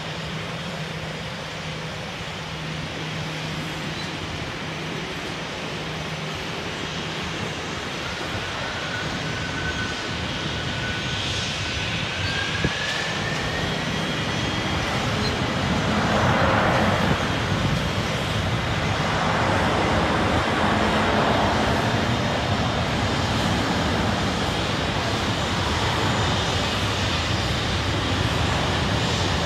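Jet engines of a taxiing Boeing 737-700, CFM56-7B turbofans, running at taxi idle: a steady rush with a low hum. A faint whine rises in pitch about a third of the way in, and the sound grows louder in surges in the second half.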